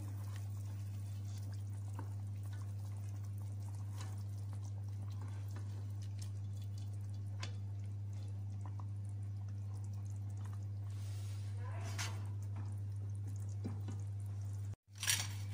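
A steady low hum, with faint drips and light clicks as chicken pieces are lifted out of the broth with a plastic slotted spoon. The sound cuts out briefly near the end.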